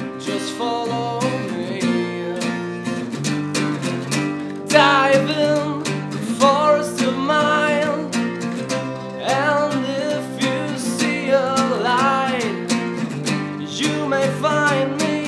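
An acoustic band playing unplugged: strummed acoustic guitars and an acoustic bass guitar, with a young man singing lead.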